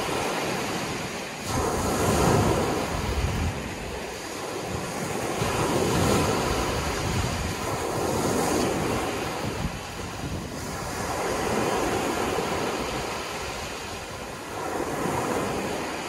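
Small ocean waves breaking and washing up the shore, the surf swelling and easing about every three seconds.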